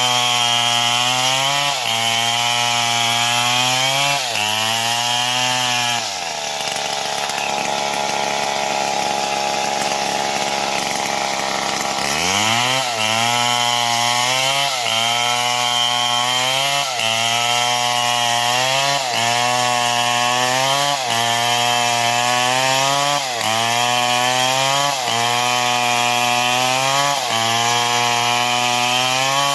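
Stihl MS 070 two-stroke chainsaw cutting wood, its engine pitch dipping and recovering about every two seconds as the chain loads in the cut. About six seconds in it drops to a lower, steadier speed for around six seconds, then revs back up and resumes the dips.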